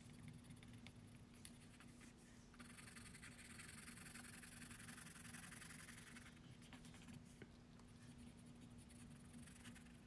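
Caran d'Ache colored pencil shading on gouache-painted paper: faint, quick scratchy strokes, fullest from about a quarter of the way in to past the middle, over a low steady hum.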